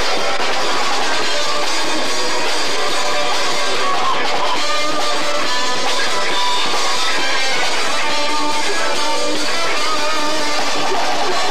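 Live rock band playing, electric guitars to the fore, loud and continuous on a muddy, low-fidelity recording.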